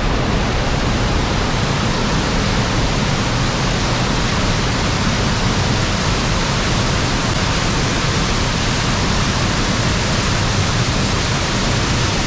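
Rushing water, a steady, even rush of sound with no let-up.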